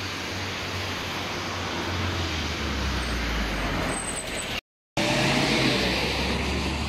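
Road traffic going by on a street: engine rumble and tyre noise from passing vehicles, swelling as one comes closer. About two-thirds of the way in it breaks off in a moment of silence, then the traffic sound carries on.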